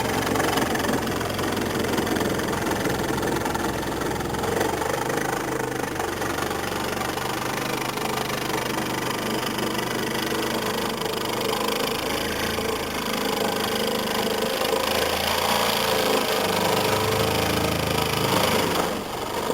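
A motor running steadily without a break.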